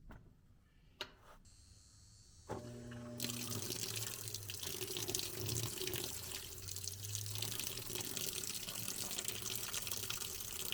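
Washing machine taking in water for its rinse cycle. A click or two, then a low hum starts about two and a half seconds in, and water begins rushing steadily into the drum a moment later.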